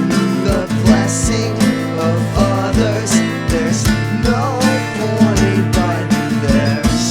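Band music: guitars over a steady beat, with evenly spaced drum hits about twice a second, in an instrumental stretch of a song.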